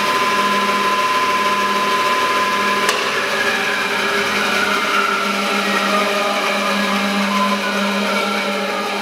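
Laguna 14X bandsaw running with no cut, a steady motor and blade hum with a rasping noise over it, and a sharp click about three seconds in. The owner takes the noise for the blade rubbing too much on the newly installed ceramic guide inserts.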